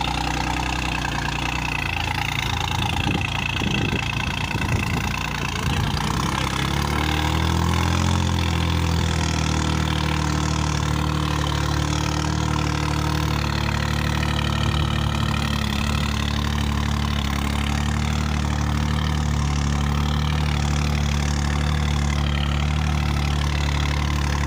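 New Holland 3600-2 tractor's diesel engine working under load as it pulls a seven-tine cultivator through dry soil. Its pitch wavers over the first few seconds, then it runs steadily at a constant speed.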